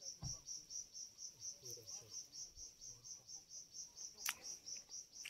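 An insect chirping in a steady high-pitched pulse, about six chirps a second, with one sharp click about four seconds in.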